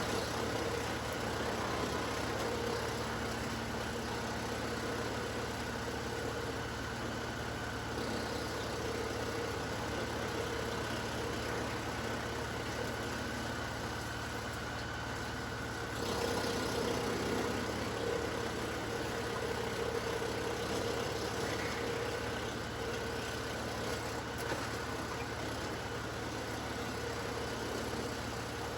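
LS XR3135 compact tractor's diesel engine driving a PTO-powered Woodland Mills WC68 wood chipper, running steadily at constant speed.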